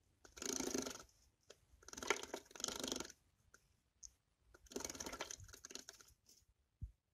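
Java sparrow bathing in a small plastic bird bath, beating its wings in the water in four short bursts of splashing, with small drips and taps between them.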